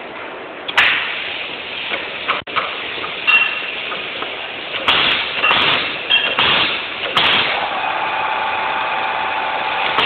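Electric wire stripping and terminal crimping machine running. A steady machine noise is broken by sharp mechanical clacks at uneven intervals, several coming close together between about five and seven seconds in. A steady hum sets in about eight seconds in.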